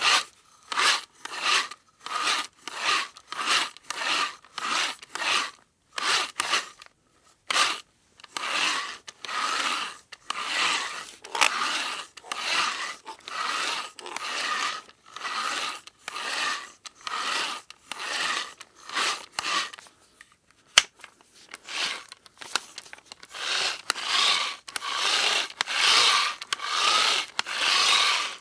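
Manual hand drill boring, a rhythm of rasping grinding strokes at somewhat under two a second, with short pauses about a quarter of the way in and about two-thirds through.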